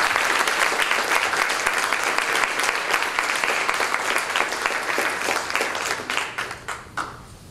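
Audience applauding, the claps thinning out and dying away near the end.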